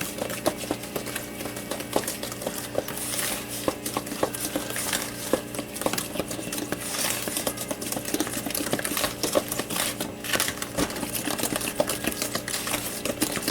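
Eggs being beaten in a bowl by hand, the utensil clicking quickly and unevenly against the bowl's sides.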